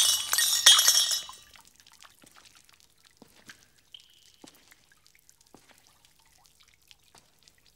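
Water splashing into a crackle-glazed ceramic bowl with a glassy clink, dying away about a second and a half in. After that, sparse drips and taps of falling water.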